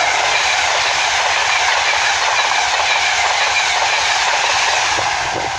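InterCity 225 train, Class 91 electric locomotive 91110 with Mark 4 coaches, passing through the station at speed. A loud, steady rush of wheels on rail eases slightly near the end.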